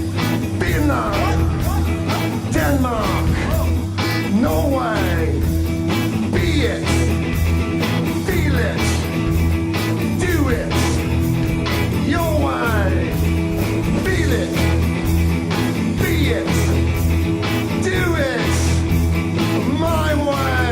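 Instrumental stretch of a rock dance track with a steady thumping beat and falling pitch slides that recur every second or two.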